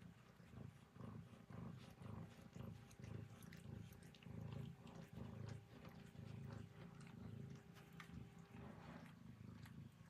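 Domestic cat purring close up: a low, soft rumble that swells and fades with each breath in and out, with faint light clicks over it.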